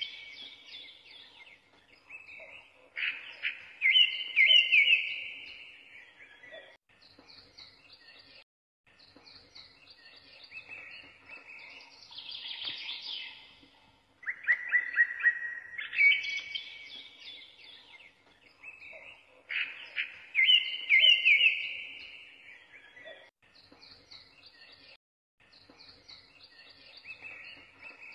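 Birds chirping and trilling in a recorded sound bed. The same stretch of calls repeats about every 16 seconds, a looped track.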